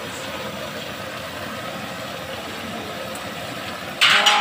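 Steady roar of a pump-up pressure stove's burner under a wok of frying meat. A short, loud burst of noise comes near the end.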